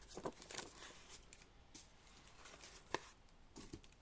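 Faint rustling and handling of a mail package's paper and plastic wrapping, with scattered light clicks and one sharper tap about three seconds in.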